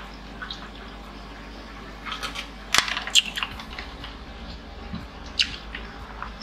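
Ice rattling and clinking in a plastic cup of water as it is drunk from and handed across: a few sharp clicks about two to three seconds in and another past five seconds, over a low steady hum.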